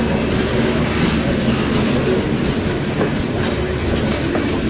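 Norfolk Southern open-top hopper cars rolling past: a steady rumble of steel wheels on rail, with a few clicks as the wheels pass over rail joints.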